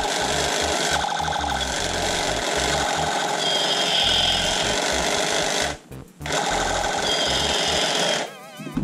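Toy gun firing a long rapid rattling burst, a brief pause, then a second shorter burst, with a thin high electronic tone sounding twice over the rattle.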